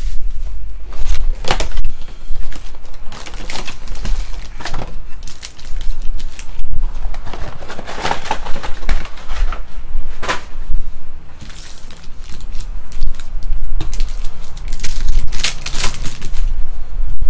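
Cardboard trading-card hobby box being opened and its foil card packs handled and torn open: a run of taps, clicks and crinkling foil, with a steady low hum underneath.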